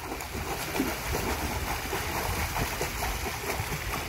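Toddler kicking its legs while swimming on its back in a pool, feet splashing the water continuously.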